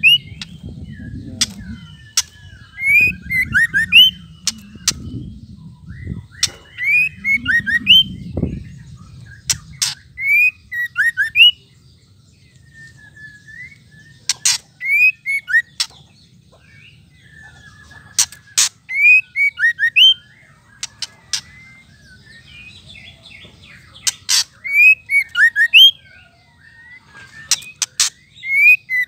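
White-rumped shama calling: short phrases of rising whistled notes broken up by sharp clicking 'ketrek' notes, repeated every second or few seconds with brief pauses. This is the excited rattling call that keepers play to stir male shamas into song.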